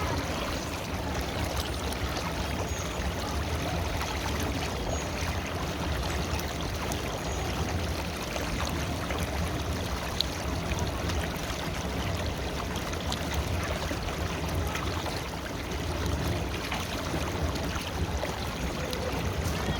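A river flowing, an even, continuous water sound, with one short click about halfway through.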